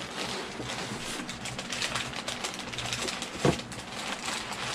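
Crumpled brown kraft packing paper crinkling and rustling as it is pulled open and searched by hand, with one louder knock about three and a half seconds in.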